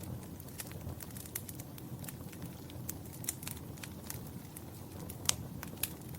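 Wood fire in a fireplace crackling: irregular sharp pops and snaps over a low steady rumble of the flames, with one louder pop near the end.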